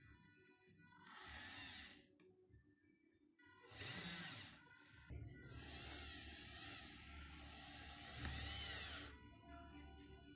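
Small electric actuator motor driving a soft exoskeleton glove, whirring in three bursts as the fingers flex and extend around a grasped object, its pitch rising and falling within each run. The last run is the longest, about four seconds.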